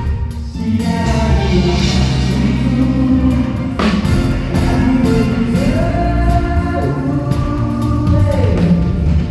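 Live band music with singing: long held, sliding melody notes over a full low end, with a sharp hit about four seconds in.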